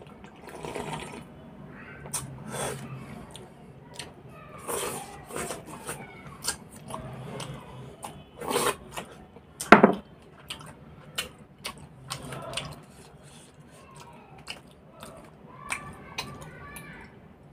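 Close-up eating and drinking sounds: slurps and swallows from a steel cup and a glass, with a spoon clinking in a small steel bowl. A sharp knock just under ten seconds in is the loudest sound.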